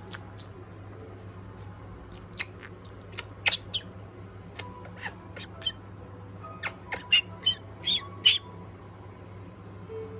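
Pet parrot giving short, sharp, high-pitched chirps and squeaks in irregular bunches, over a steady low hum.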